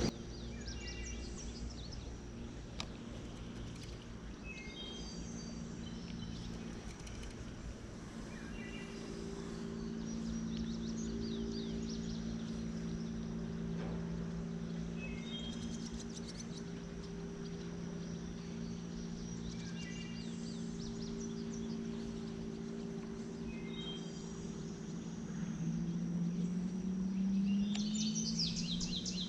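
A bird sings a short chirping phrase again and again, about every four seconds. Under it runs a steady low hum that rises in pitch and grows louder near the end.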